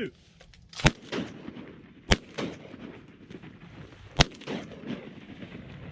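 Three shotgun blasts, the second about a second and a half after the first and the third about two seconds later, each followed by a short rolling echo: duck hunters firing at a pair of ducks.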